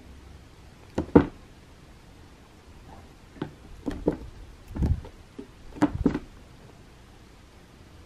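A cat's paws batting and thumping on a carpeted wooden scratching ramp: a scatter of short, irregular knocks and scrapes, in clusters about a second in, around the middle, and again near six seconds.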